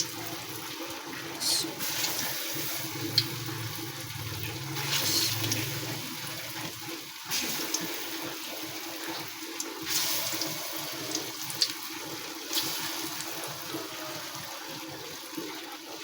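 Breaded chicken cheese balls sizzling as they fry in oil over a low flame: a steady hiss that swells every few seconds.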